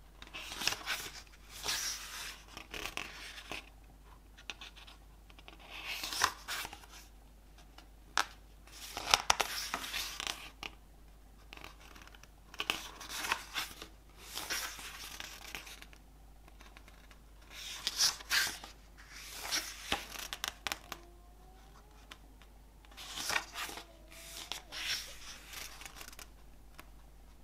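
Hands handling the cardboard and plastic packaging of an album box set: bouts of rustling, scraping and tearing a second or three long, with short pauses between and an occasional sharp click.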